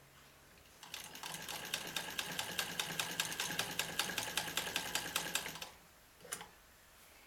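PMZ-1A sewing machine running for about five seconds, stitching T-shirt knit with a rapid, even stitch rhythm of several strokes a second. A single short click follows near the end.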